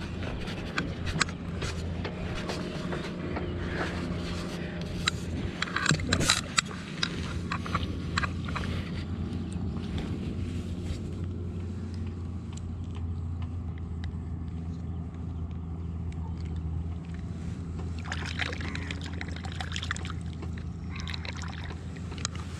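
A small motor runs with a steady low hum, with water sloshing. Scattered sharp clicks and taps come and go, thickest about six seconds in and again near the end.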